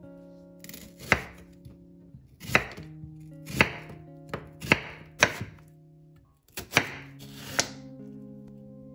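Chef's knife slicing through a peeled raw onion and striking a bamboo cutting board. About eight crisp cuts come at roughly one a second, unevenly spaced.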